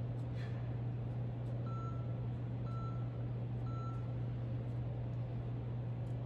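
Three short electronic beeps about a second apart, the countdown of a workout interval timer marking the end of a Tabata work period, over a steady low electrical hum.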